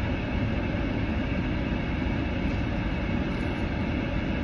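Steady running noise inside a parked car's cabin, an idling car heard from the driver's seat.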